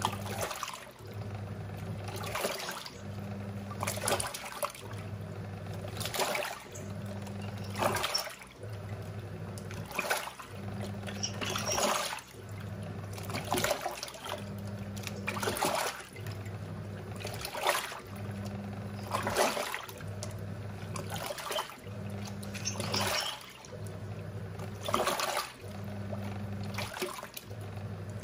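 Giantex EP23113GB top-loading washing machine agitating a wash: the motor hums in short on-off bursts as it turns one way and then the other, with a swish of water and laundry about every two seconds.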